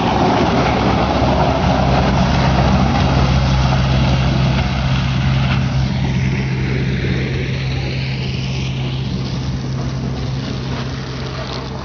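JCB backhoe loader's diesel engine running steadily with a low hum, under a broad rushing noise. A whoosh rises from about six seconds in and fades near nine seconds.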